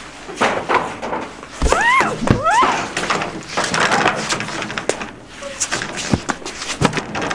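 A struggle: scuffling and knocks, with two short, rising high-pitched cries from a woman about two seconds in.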